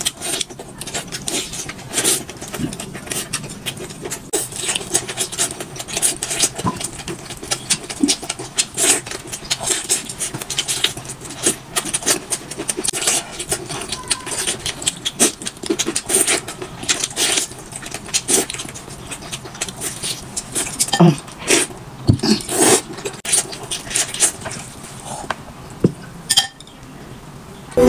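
Close-up eating sounds: wet chewing and lip-smacking as a chicken drumstick and noodles are eaten, with many short clicks throughout and the odd tap of chopsticks on the bowl.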